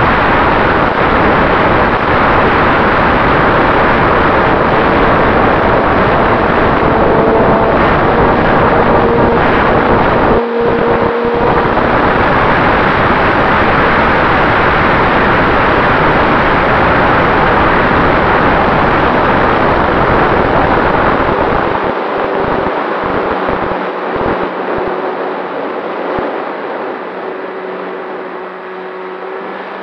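Radio-controlled Cessna 188 model plane in flight, heard from its onboard camera: a dense rush of propeller and wind noise with faint steady motor tones. About two-thirds of the way through the rush eases and gets quieter, and a low steady hum comes through.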